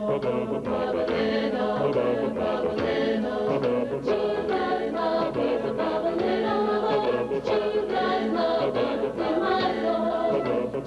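Music: a choir singing a song, with singing that goes on without a break through the whole stretch.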